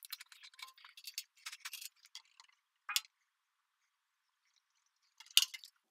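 Plastic pail of polyurethane clear coat being handled and opened: a quick run of small plastic clicks and crackles from the lid, a single click near three seconds, then a sharp knock about five and a half seconds in. The pour itself makes no clear sound.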